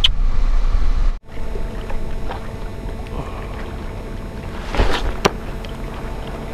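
Low steady car-cabin hum for about a second, then a cut to steady sea wind on the microphone. A spinning rod is cast with a short whoosh and a sharp click just after, about five seconds in.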